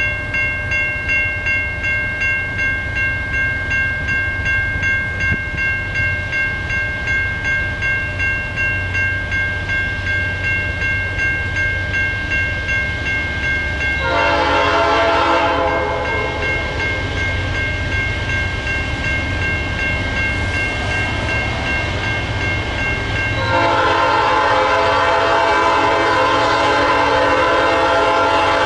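Nathan P5 air horn on an NS GE AC44C6M locomotive sounds a short blast about halfway through and a longer one near the end. Under it a bell rings steadily over the low rumble of the passing freight train.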